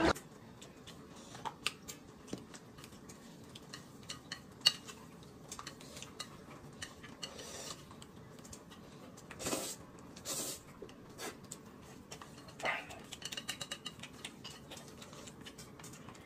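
Quiet tableware sounds of eating: a spoon clinking and scraping in a glass cup and chopsticks tapping on a plate of noodles, with scattered light clicks and a few short, louder swishes about ten seconds in.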